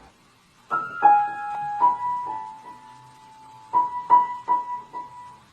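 Single piano or electric-keyboard notes struck one at a time in a simple tune, with the same note repeated four times in quick succession near the end.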